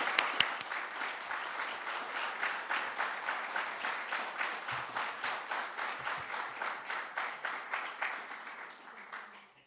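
Applause: many hands clapping in a steady patter, with a few loud sharp claps close to the microphone at the start, dying away near the end.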